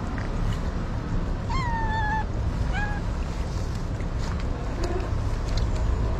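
A cat meowing twice, a longer call that falls slightly about one and a half seconds in and a short one about a second later, over a steady low rumble.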